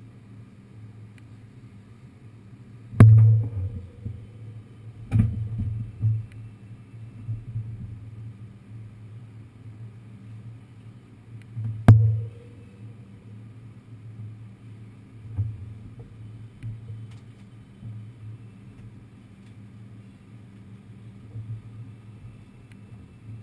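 New York City subway car (5 train) riding: a steady low rumble with a constant mechanical hum, broken by sharp metallic knocks about three, five and twelve seconds in.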